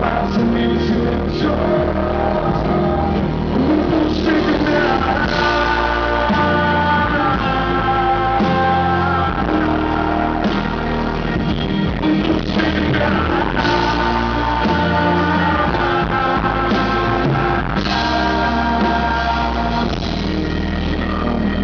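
A live band plays a pop-rock song loudly and without a break, with sustained pitched notes over a steady bass line.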